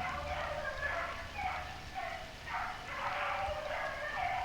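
Hunting dogs baying over and over, about two calls a second, as they run a trail, which the listener takes for a rabbit they have found.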